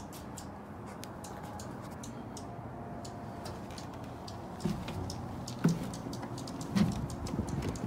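Footsteps going down a railcar's metal steps onto gravel ballast: three heavy steps about a second apart, starting a little past halfway. Under them runs a steady, faint, high ticking.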